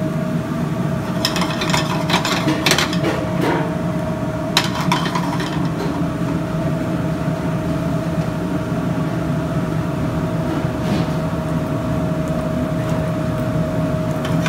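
Steady mechanical hum of a commercial kitchen's gas range and ventilation, holding one constant tone. A few sharp knocks and clatters of pans or utensils come between one and three seconds in and again near five seconds.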